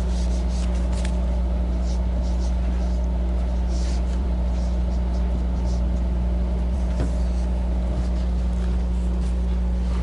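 A steady low hum with a constant band of room noise, and faint short scratches of a dry-erase marker writing on a whiteboard.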